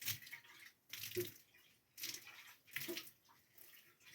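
Water splashing and sloshing in short bursts, about one a second, with dull low thuds in among them.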